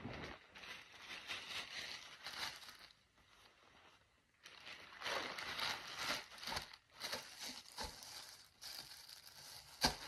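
Clear plastic packaging bag crinkling and rustling as it is handled and unwrapped, in irregular bursts with a pause of about a second and a half near the middle.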